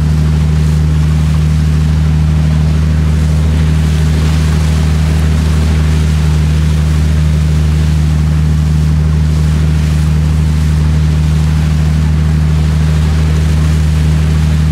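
Sightseeing boat's engine running steadily underway, a loud, even low drone, with water rushing in the wake.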